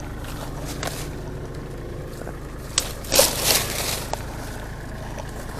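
A 16-ounce throw ball and its line thrown up through the tree's leaves and branches: a sharp tick, then about a second of rustling and swishing through the foliage. A low engine idles steadily underneath.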